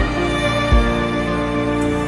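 Sad background music with long held string notes, with two brief low thumps, one at the start and one under a second in.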